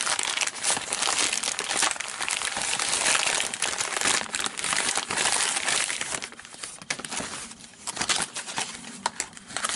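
Grey plastic mailer bag crinkling and tearing as it is pulled open and handled by hand. The crinkling is dense for about six seconds, then turns quieter, with scattered light rustles.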